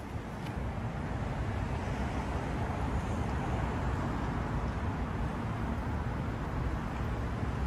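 Steady rumble of city traffic in the street, an even wash of noise with no distinct events.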